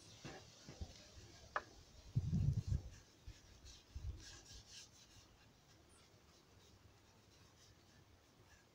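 Paintbrush brushing polish onto a hardwood stool's legs, a soft rubbing of bristles on wood, with a short cluster of low knocks against the wood about two and a half seconds in.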